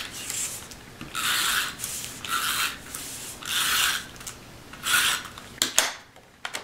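Adhesive tape runner drawn along cardstock in about five short rasping strokes, roughly a second apart, laying adhesive on the paper. A few sharp clicks near the end.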